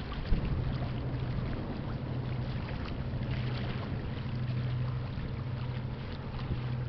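Steady low drone of a pusher tug's diesel engines pushing a loaded barge, heard across the water.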